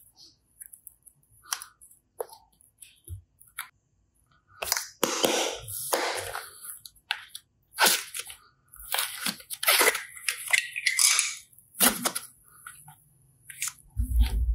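Hands squeezing and pulling apart soft slime clay. A few small sticky clicks give way, about four seconds in, to a run of crackling, tearing squishes. A low thump comes near the end.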